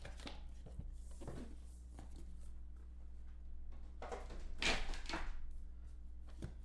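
Handling noises as a wooden trading-card box is opened and a sealed card pack is lifted out and set down on a table mat: a few soft knocks, then a louder handling noise about four and a half seconds in. A steady low hum runs underneath.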